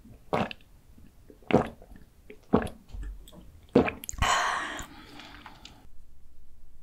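A person gulping a drink from a glass carafe, four swallows about a second apart, followed by a long breath out. The sound then drops suddenly to a faint steady hum.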